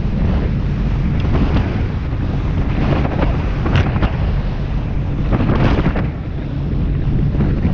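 Heavy wind buffeting the microphone on a Searider rigid inflatable boat running at speed through choppy sea, with bursts of spray and splashing as the hull meets the waves, the strongest about four and five and a half seconds in.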